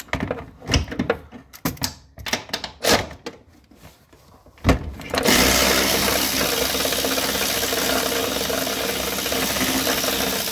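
A wrench clicking and clinking on metal as a strut top nut is worked through an access hole, then about five seconds in a loud, steady machine noise from a motorized tool starts abruptly and keeps running.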